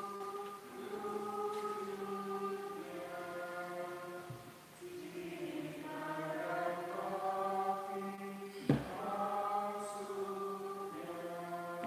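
A group of voices singing an offertory hymn in long held phrases with short breaths between them. A single sharp knock sounds about nine seconds in.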